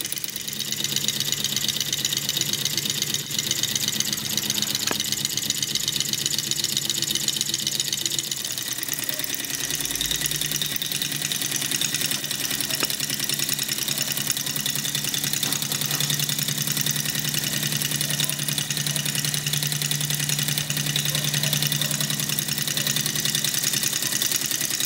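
All-metal model Stirling engine with a rocking beam running steadily at speed: a fast, even mechanical ticking over a steady low hum.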